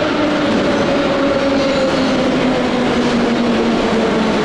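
A train running close by, loud, with a humming tone that slowly drops in pitch under a dense rumble of wheels and rails.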